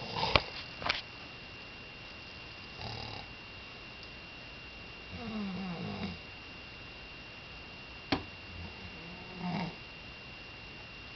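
Snoring in slow, separate breaths a few seconds apart, the longest about five seconds in, each with a rumbling, wavering pitch. A few sharp clicks come near the start and one about eight seconds in, over a faint steady high whine.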